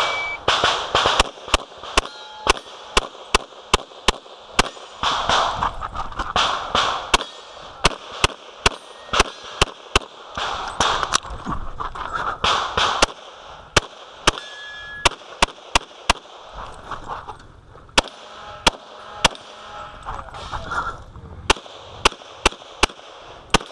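A shot-timer beep, then a Glock 24 pistol in .40 S&W fired in quick strings of shots during a practical-shooting stage, dozens of sharp reports with short breaks between the strings.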